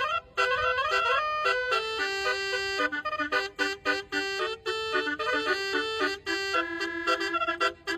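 Basuri telolet horn playing a tune: a quick melody of separate held notes with short breaks between them.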